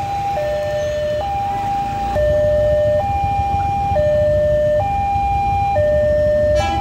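Railroad level-crossing warning alarm sounding its electronic two-tone signal, alternating a higher and a lower tone of a little under a second each, the warning that a train is approaching and the barrier is closed. Underneath is a low rumble of traffic.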